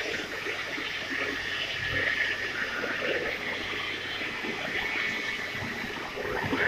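Argon-shielded (TIG) welding arc burning with a steady hiss and light crackle.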